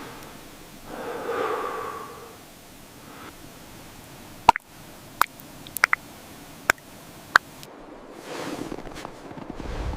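A soft hiss broken by five or six sharp, isolated clicks or pops between about four and a half and seven and a half seconds in, with a brief tone-like swell about a second in and a rushing swell near the end.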